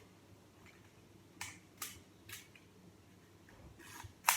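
Olympus 35 RC film camera being handled and its controls worked: a few short, sharp mechanical clicks, the loudest near the end.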